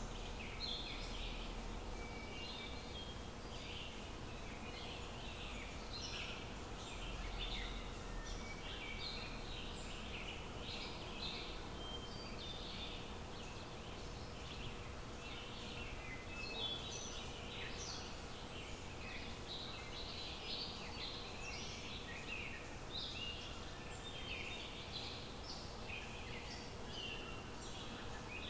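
Small birds chirping and singing outdoors: many short high calls, one after another, over a faint steady hum.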